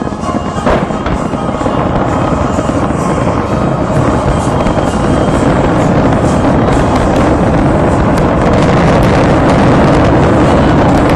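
Fireworks finale barrage: many aerial shells bursting in quick succession, merging into a continuous rumble with crackling on top, growing louder over the first few seconds.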